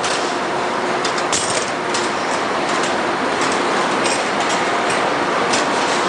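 Steady factory-floor machinery noise from the plier gripping line's conveyor and oven, with a few faint steady hums and scattered light metallic clicks.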